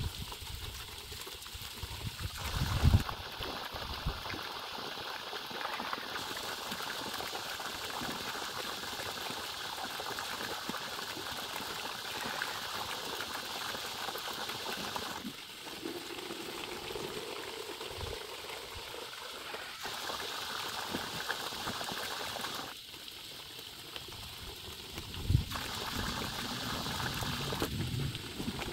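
Water from an electric pump's outlet pipe splashing steadily into a plastic bucket and onto wet ground, its tone shifting several times. A thump about three seconds in and another near the end.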